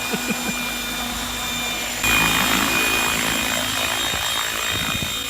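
Remote-control helicopter's rotor and motor whirring with a steady high whine, getting louder suddenly about two seconds in.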